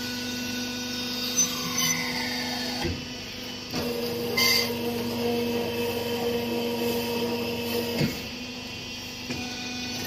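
Cement interlocking brick-making machine running with a steady motor hum, broken by a few metal knocks and clanks. A higher hum joins in about four seconds in and drops away again near eight seconds.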